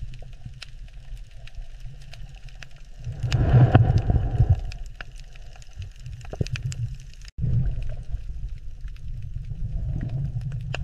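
Low, rumbling underwater ocean ambience with scattered sharp clicks, surging loudest about three seconds in and swelling again near the end.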